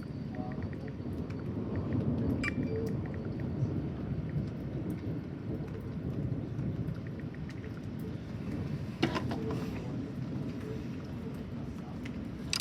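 Rain falling during a thunderstorm, with low rolling thunder that swells about two seconds in and then eases. A single sharp tap comes about nine seconds in.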